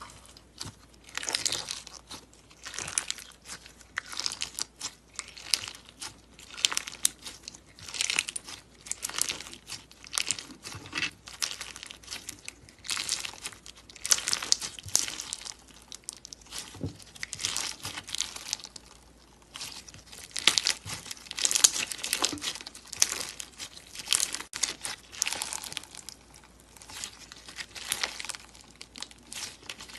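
Clear slime packed with gel beads being squeezed and stretched by hand, giving wet crackling squishes in bursts about once a second.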